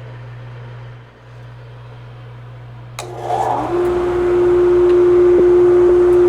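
Pre-glued edge banding machine starting up. A steady low hum runs, then about three seconds in a click is followed by its motors spinning up within a second to a steady, loud whine.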